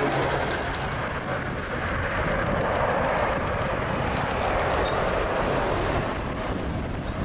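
Airbus A350-900's Rolls-Royce Trent XWB turbofans at takeoff thrust as the jet lifts off and climbs out from a touch-and-go: a steady rushing jet noise that eases slightly near the end.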